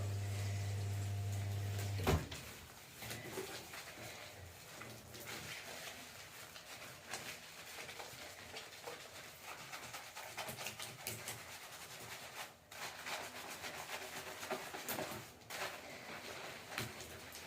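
A steady low hum cuts off with a click about two seconds in. After that comes faint squelching and rubbing as shampoo is lathered through wet hair by hand.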